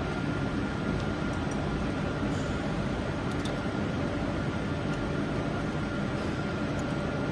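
Steady whirring hum of an SLM metal 3D printer's fans running, with a thin steady whine above it. A few faint light ticks come as the scraper fixture is handled.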